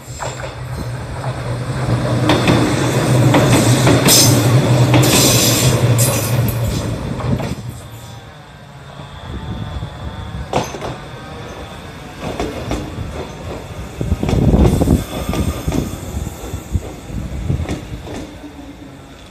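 Mizuma Railway 1000-series electric train (ex-Tōkyū 7000 series) passing close by, loudest from about two to eight seconds in, with a steady low hum and wheels clattering on the rails. Afterwards the train runs more quietly, with a sharp knock about ten seconds in and thin wheel squeal near the end.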